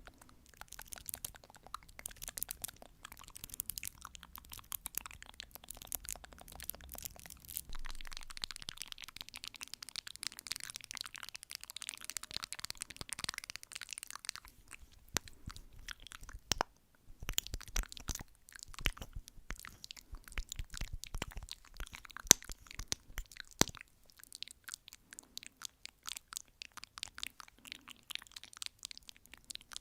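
Fast ASMR tapping: dense runs of sharp, crackly clicks, with a short break a little past the middle.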